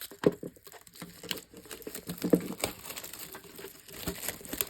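Plastic shrink wrap crinkling and tearing as a Pokémon card tin is unwrapped, with several sharp clicks and knocks from handling the tin.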